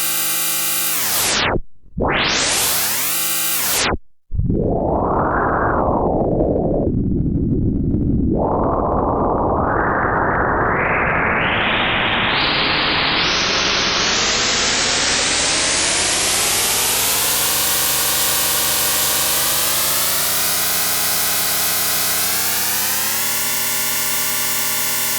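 Homemade electronic sound effect imitating a rotating machine such as a motor: a humming stack of tones that cuts out briefly twice in the first four seconds and turns into a rushing noise. It then becomes tonal again, its pitch climbing in steps through the rest.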